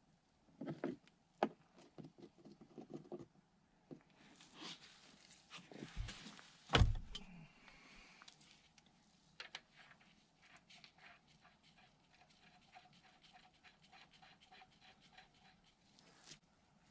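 Hand work on a hydraulic hose fitting: scattered small metallic clicks and handling knocks, one heavier thump about seven seconds in, then a run of quick light ticks.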